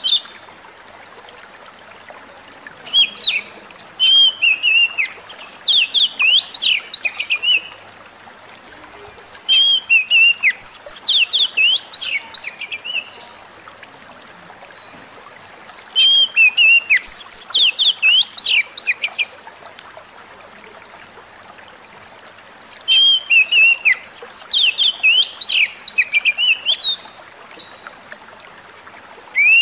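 Oriental magpie-robin (kacer) singing in four bouts of rapid, varied chirps and whistles, each lasting about three to five seconds with short pauses between. It is a vigorous challenge song of the kind that sets other kacer off.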